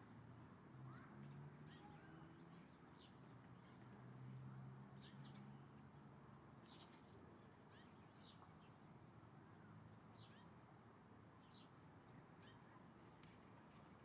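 Faint bird chirps: short, high notes repeated roughly once a second, over a low steady hum that is stronger in the first half.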